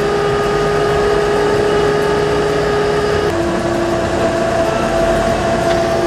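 Boom truck's engine running steadily. Held tones lie over it and step to a new pitch about three seconds in.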